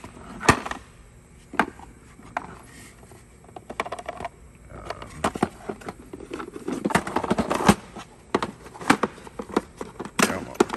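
Drill bits, extractors and their cases being handled in a toolbox drawer: a run of irregular sharp clicks, knocks and clatter of metal and plastic.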